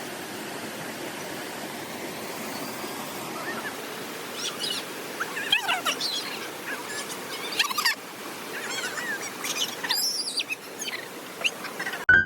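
Valley stream water running steadily, with birds chirping over it from about four seconds in.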